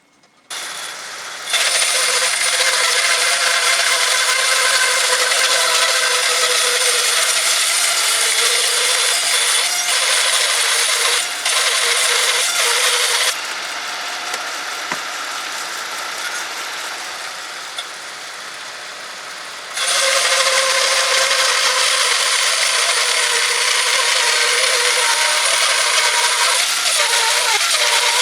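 Homemade horizontal bandsaw mill with an electric motor, its blade running and sawing through a linden log with a steady mechanical whir. The sound gets noticeably quieter for about six seconds in the middle, then comes back to full strength.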